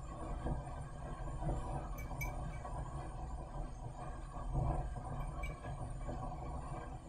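Metal tweezers lightly clinking against a glass beaker as a fabric strip is moved in the dye solution: two faint clinks about two seconds in and two more about five seconds in, over a steady low room hum.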